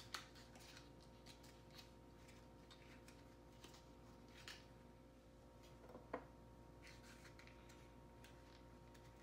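Near silence with a faint steady hum, broken by scattered faint clicks and taps of batteries going into the plastic battery compartment of a toy fishing game; the loudest click comes about six seconds in.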